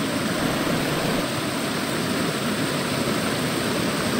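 Stream water rushing and churning over rocks in a steady, loud rush.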